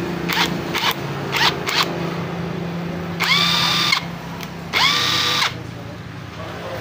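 Electric impact wrench run with no load, being tested after repair: four quick trigger blips, then two longer runs of under a second each in which the motor whine climbs quickly and then holds steady.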